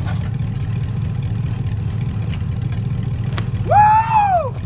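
Pickup truck engine idling with a steady low rumble. About three and a half seconds in, a man lets out one long whooping yell that rises and then falls in pitch.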